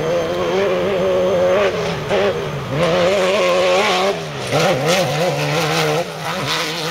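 Off-road race buggy engine revving hard, its pitch repeatedly rising and falling as the throttle is worked, with a sharper drop and recovery about four seconds in.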